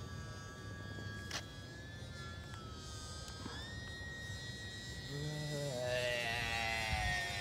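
E-flite UMX Pitts S-1S micro RC biplane's small electric motor and propeller whining in flight, the pitch shifting slightly with throttle. About five seconds in it grows louder and its pitch slides down as the plane passes close.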